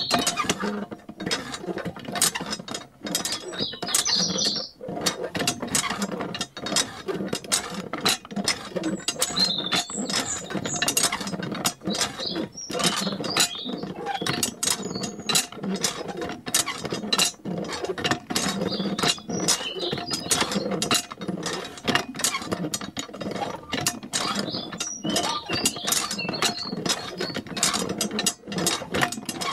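Miniature hand pump worked by its lever in a steady run of sharp mechanical clicks and rattles, with water trickling from the spout into a small tank.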